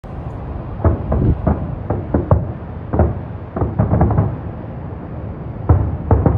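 Fireworks bursting: quick clusters of booms and cracks, about fifteen in all, in three groups with a short lull before the last pair, over a steady low rumble.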